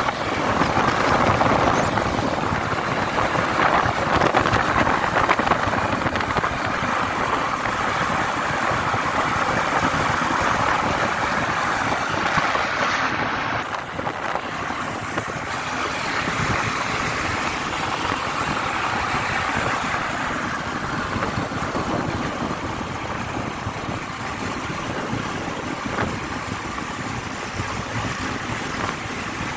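Steady wind rush and road noise on a moving motorcycle, with the motorcycle's engine and passing traffic underneath; it eases a little about halfway through.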